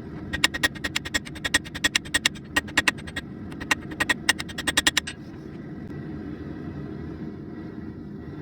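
Rapid hammer blows on hot steel against an anvil, each strike ringing. They come in two quick runs with a short break near three seconds, stopping about five seconds in. A steady low rumble runs underneath.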